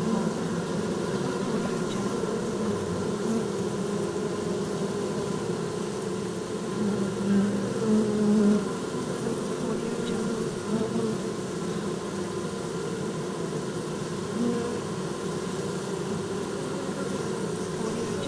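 Many bees buzzing steadily, their overlapping wingbeat hums forming a dense drone. A buzz swells louder a few times, most strongly about seven to eight and a half seconds in, as bees pass close.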